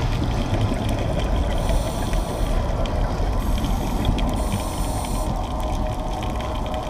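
Underwater noise picked up through a diving camera's housing: a steady low rumble with scattered faint clicks. A high hiss comes in about one and a half seconds in and again from about three and a half to five seconds.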